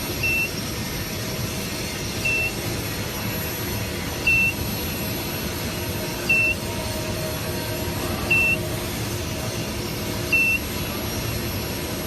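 Electronic beeper giving a short high beep every two seconds, six times, over a steady machine hum.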